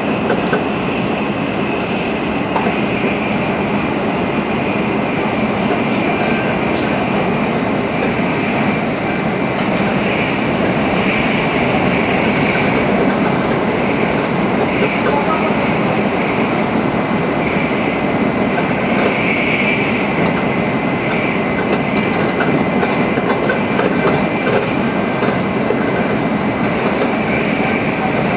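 Tokaido Shinkansen Nozomi train running at full speed: steady rushing and rolling noise, with a thin, steady high whine above it.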